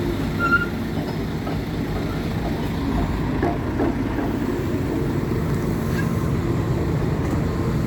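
Hidromek 230 LC crawler excavator's diesel engine running steadily: a continuous low rumble.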